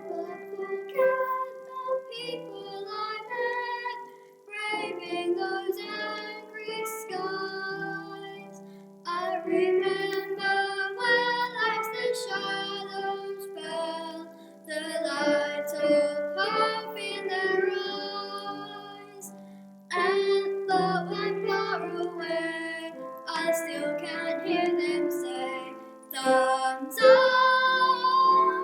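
Music: a song sung in short phrases over instrumental accompaniment.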